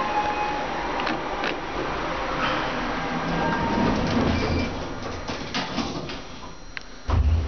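A Hopmann hydraulic glass elevator running and arriving at its floor, with clicks from the door and relay mechanism and a low hum that fades in the second half. A heavy low thump comes near the end.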